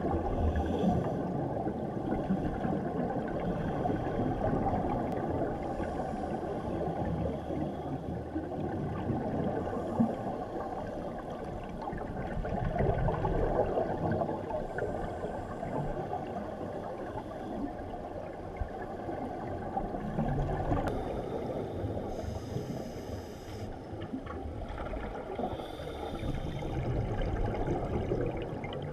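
Muffled underwater sound through a GoPro Hero3's waterproof housing: scuba divers' exhaled regulator bubbles gurgling and rumbling, swelling and fading every several seconds, with a single knock about ten seconds in.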